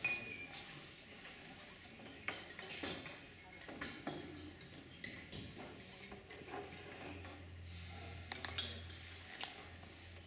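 China teacups, saucers and teaspoons clinking on tables: scattered light clinks throughout, the loudest cluster a little past eight seconds in.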